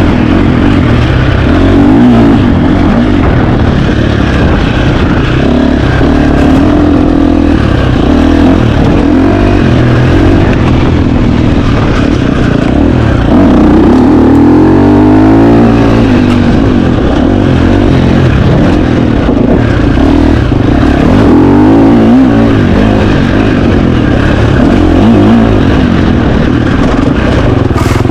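2025 KTM 350 XC-F four-stroke single-cylinder dirt bike engine, loud, revving up and down continuously as it is ridden hard, the pitch climbing and dropping with throttle and gear changes.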